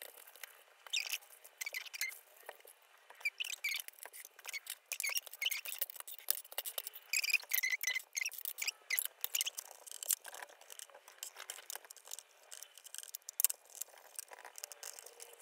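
Paper towel rubbing and scrubbing over old metal watercolor tins, with many irregular light clinks and taps as the tins and their small metal paint pans are handled.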